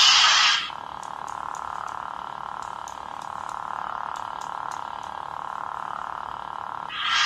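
Lightsaber sound-effects board playing saber sounds: a loud hissing burst that ends about half a second in, then a steady hum with faint ticks, then another loud hissing burst near the end.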